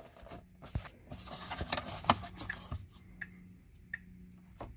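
Scattered small plastic clicks and scrapes as fingers work at a clip on a Tesla's steering column trim, with a few sharper clicks about a second in, around two seconds in and near the end.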